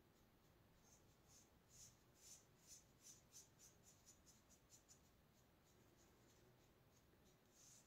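Faint swishing of a paintbrush working chalk paint, a run of soft strokes about three a second that stops a little past halfway.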